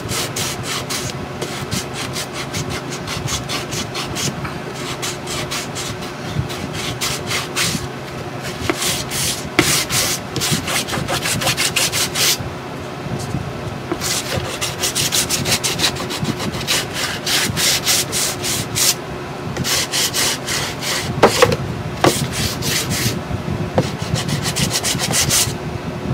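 Hand sanding block rubbed back and forth over a painted chipboard box, sanding back a coat of antiquing cream. Quick, rasping strokes come in runs broken by a few short pauses.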